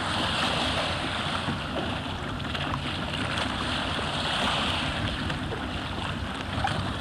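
Motorboat under way on choppy sea: steady rush and splash of water with engine rumble, and wind buffeting the microphone.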